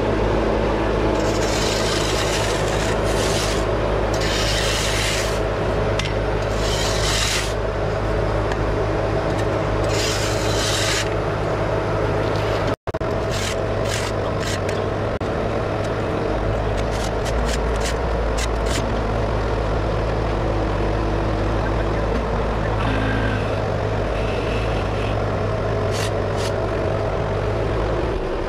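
A Bobcat skid-steer loader's diesel engine running steadily, with a shovel scraping through loose dirt in repeated strokes over the first half. After a cut, the hydraulic auger digging into the post hole with short sharp clicks and knocks.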